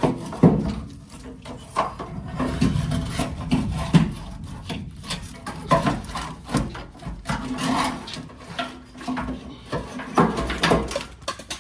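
Irregular scraping, rubbing and knocking as a Ford F-150's old fuel pump assembly is twisted and worked loose to come out of the fuel tank.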